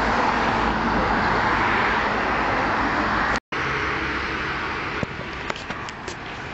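A bus passing close by: a loud, steady rush of engine and tyre noise that cuts off abruptly about halfway through. After that, quieter street noise with a few light clicks.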